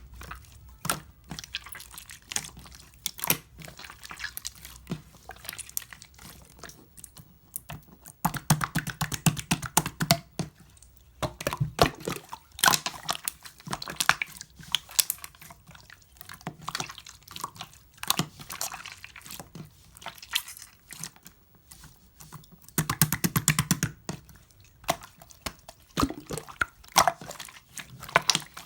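Clear pearl slime being squeezed and pressed by hand. It makes a stream of wet clicks and pops, with denser squelching spells about a third of the way in, around the middle, and near the end.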